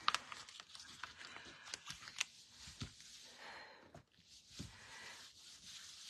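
A folded non-stick craft mat being unfolded and smoothed flat on a tabletop: faint crinkling and rustling with a few light taps.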